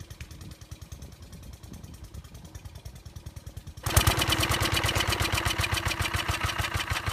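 An engine running with an even, rapid beat, fairly quiet at first, then much louder from about four seconds in.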